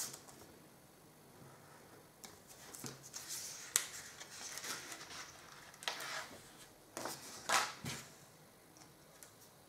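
Quiet handling of small modelling tools and a decal sheet on a work table: light rustling and several sharp clicks, three of them close together about seven to eight seconds in.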